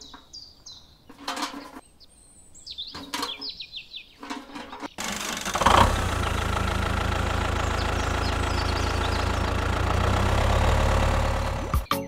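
Birds chirp with small clicks and scrapes of sand buckets being handled. About five seconds in, a tractor engine starts and runs steadily at idle with a low rumble, then cuts off suddenly just before the end.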